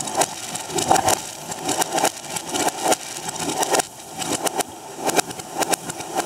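Fireworks bangs and crackles played sped up and backwards, so that they run together into a dense, irregular rattle of sharp cracks, several a second.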